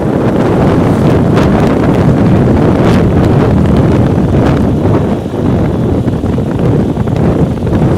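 Wind buffeting the microphone of a moving motorcycle: a loud, steady low rush, with a few brief sharper gusts.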